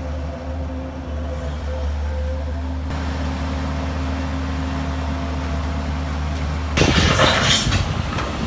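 A steady low engine-like hum, with a loud rattling clatter lasting about a second near the end.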